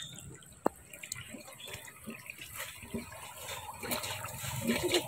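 Shallow muddy water splashing and sloshing as a triangular hand net is worked through it, with a single sharp click about half a second in.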